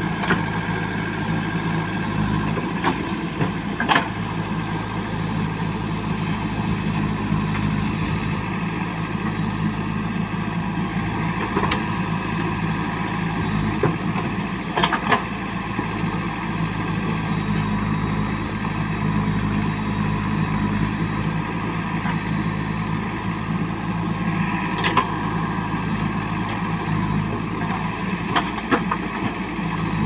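Diesel engine of a JCB 3DX backhoe loader running steadily under hydraulic load as the backhoe arm digs soil, with a few sharp clanks of the bucket and arm.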